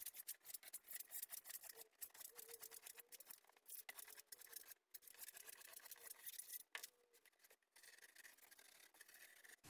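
Insulation knife sawing through a polyiso rigid foam board: faint, quick scratchy strokes with a few short pauses.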